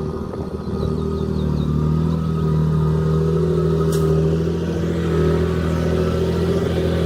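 Heavy diesel engine of earthmoving machinery running steadily, growing louder about two seconds in, with a single sharp click near the middle.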